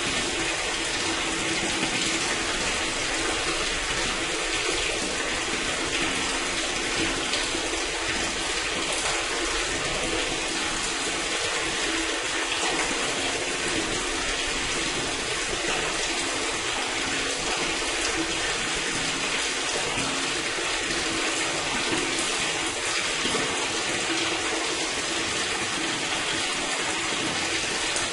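Water pouring steadily into a sewer drain: an even, unbroken rush and splash with no change in strength.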